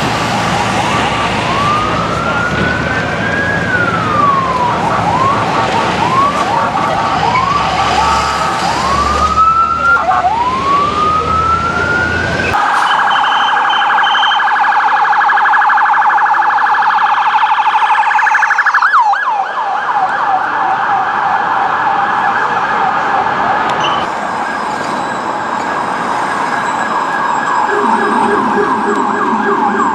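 Police car sirens. First a wail with long rising and falling sweeps and short whoops over traffic and engine noise. About 12 seconds in, the traffic noise cuts off and a fast warbling yelp takes over, broken by one falling sweep near 19 seconds, with a lower-pitched tone joining near the end.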